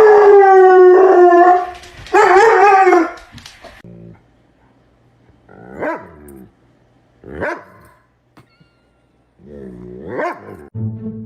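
Dog howling: two long, wavering howls in the first three seconds, then three short separate yips spread over the rest.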